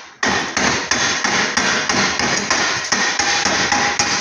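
Chipping hammer striking a freshly laid arc weld over and over, about three metal blows a second, knocking the flux slag off the bead.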